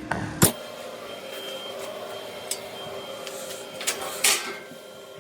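Knocks and clanks of freshly plasma-cut steel letters being handled on the cutting table, a loud one about half a second in and a few smaller ones later, over a steady machine hum.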